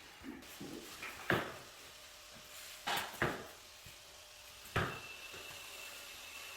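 Four sharp knocks, the middle two close together, like hard objects striking or being set down. A faint steady high tone begins about five seconds in.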